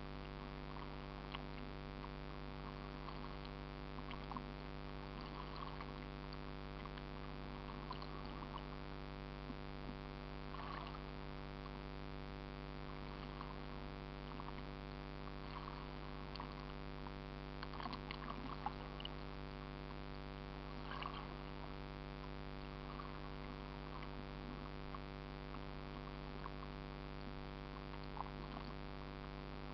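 A steady mechanical hum made of many even tones that never changes in pitch, with faint short sounds scattered over it.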